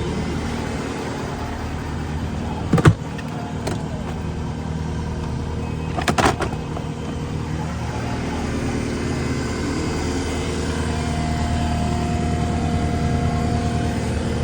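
Heavy machine's diesel engine running steadily, with a single sharp knock about three seconds in and a short cluster of knocks around six seconds. A faint steady whine joins in during the last few seconds.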